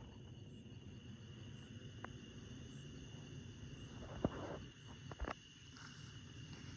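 Insects, likely crickets, trilling steadily in a high continuous chorus over a low background rumble. A few sharp clicks or knocks break through, the loudest about four seconds in and a quick pair just after five seconds.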